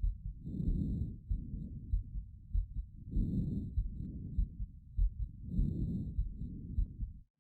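Chest sounds as heard through a stethoscope. Low heartbeat thumps come about twice a second, and a rushing sound swells and fades about every two and a half seconds.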